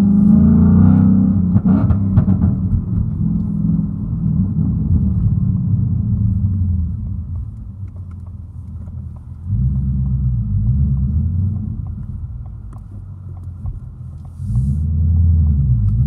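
2019 Ford Mustang Bullitt's 5.0-litre V8, on factory exhaust with the resonators cut out, accelerating through the gears. The engine note climbs and drops with each shift, with loud pulls near the start, about two-thirds of the way in, and again near the end.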